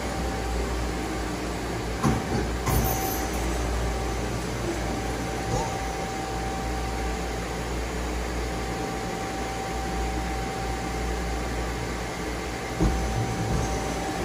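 Doosan Lynx 2100LB CNC lathe running with its spindle turning the 3-jaw hydraulic chuck: a steady machine hum with a constant thin whine and a deep rumble. A few sharp clunks come through, about two seconds in and again near the end.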